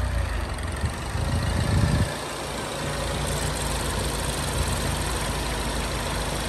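A 2013 Ford Focus ST's turbocharged 2.0-litre EcoBoost four-cylinder engine idling, heard over the open engine bay. The revs swell briefly and drop back about two seconds in, then it runs at a steady idle.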